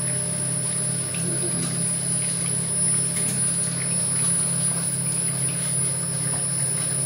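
SPU 40 screw oil press running, its 2.2 kW electric motor and gearbox turning the press screw as it presses sunflower seeds: a steady low hum with a few faint clicks.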